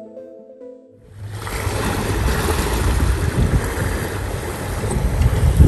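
Background music ends about a second in, then wind noise rumbling on the microphone and water rushing and splashing along the hull of a sailboat under way in choppy water, with a louder gust buffeting the microphone near the end.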